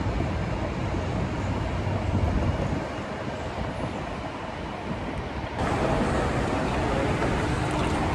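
Steady road traffic noise of an airport terminal roadway, changing abruptly about five and a half seconds in to closer, louder and brighter traffic sound at the curbside.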